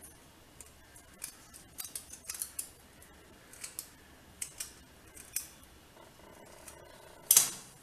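Small kitchen knife scraping the outer skin off a piece of dried ginger root in short, irregular dry scratching strokes, with one sharper, louder stroke near the end.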